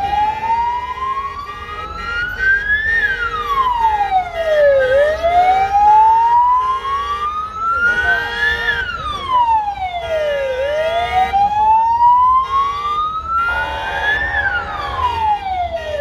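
A siren wails slowly up and down about three times, each time climbing for about three seconds and then falling back quickly. Car horns sound steadily underneath.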